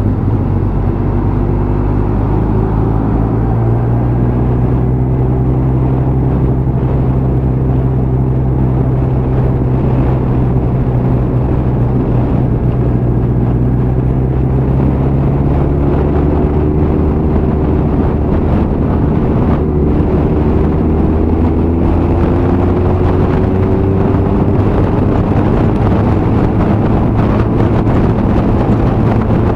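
Motorcycle engine pulling hard, heard from on the bike, with wind rushing past. The engine note climbs steadily, drops back once around halfway at a gear change, then climbs again.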